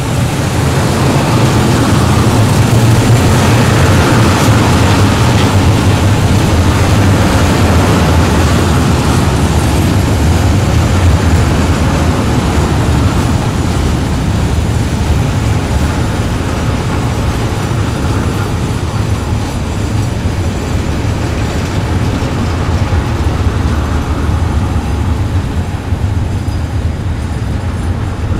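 Freight wagons of a long PKP Cargo goods train rolling past at a steady speed: a loud, steady rumble of wheels on rail, easing slightly in the second half.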